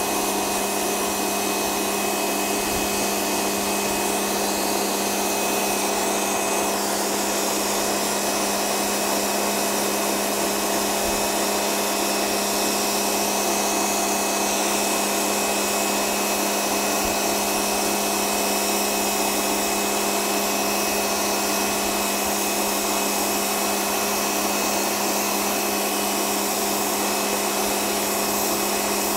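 Kärcher K2 1400-watt electric pressure washer running steadily under load, its motor and pump humming evenly while the multi-lance's jet hisses onto concrete paving slabs.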